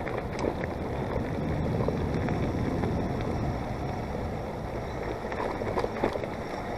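Mountain bike riding over soft, wet trail: steady wind rush on the microphone and tyre noise, with a few small clicks and rattles from the bike.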